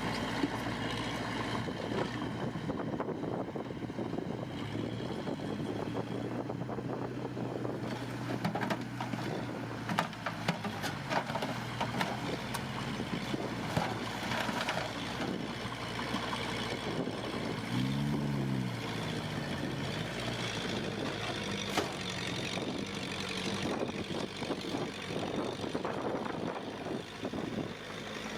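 Heavy diesel earthmoving machinery, a bulldozer and dump truck, running steadily, with scattered clanks and knocks and a brief rise and fall in engine pitch about two-thirds of the way through.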